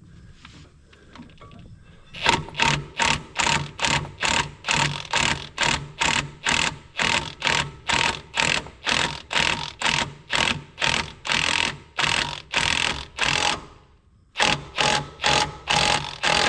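Impact wrench driving a bolt home in short, even bursts about two a second, with a brief pause near the end before it starts again.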